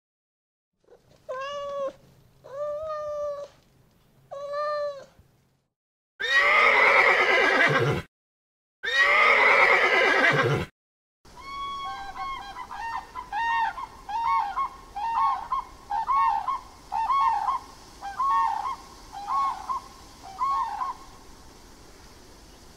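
A string of animal calls: three drawn-out pitched calls, then two loud harsh calls, then a run of about ten short repeated calls, roughly one a second, each set starting and stopping abruptly.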